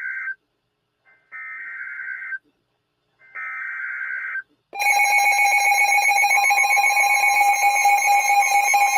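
Emergency Alert System SAME header: three roughly one-second bursts of warbling digital data tones, a second apart, announcing a new alert. Near five seconds in, a loud, steady, harsh alert tone starts and holds: the attention signal.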